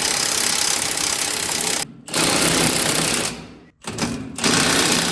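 Impact wrench hammering large hitch-mounting bolts tight, in about four bursts with short breaks between them.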